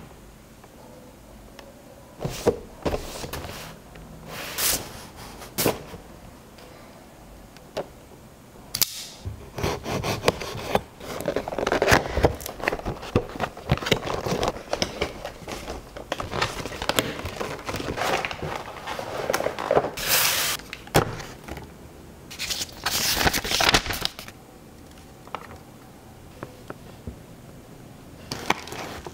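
Close-up handling of a cardboard Nendoroid figure box and its clear plastic blister tray: taps, scrapes and clicks as the box flap is opened and the tray is slid out, with plastic crackling. The handling is sparse at first and busiest in the middle.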